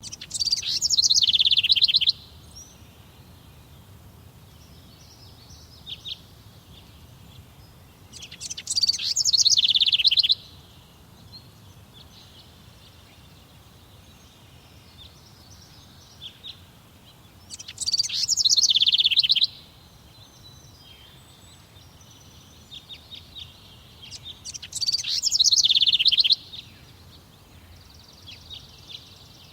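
A songbird singing four loud song phrases, each about two seconds long and ending in a fast trill, with several seconds between them; fainter chirps fill the gaps.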